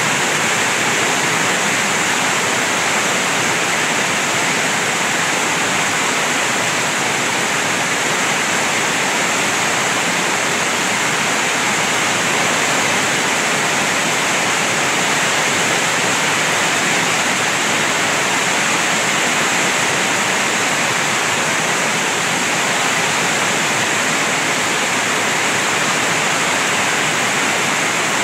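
Torrential typhoon rain pouring steadily, a dense, even hiss of heavy rainfall hitting the ground and roofs.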